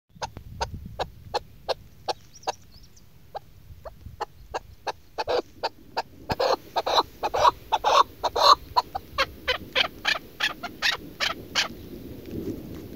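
Female chukar partridge calling a run of sharp clucks, about two or three a second. About halfway through they grow louder and come faster, then stop shortly before the end.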